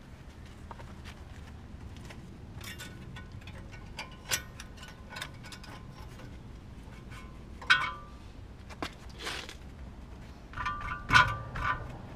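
Small metal tool adapters clinking and knocking together as they are rummaged through in a tool case: scattered light knocks, with ringing metallic clinks about two thirds in and again near the end, the loudest just before the end.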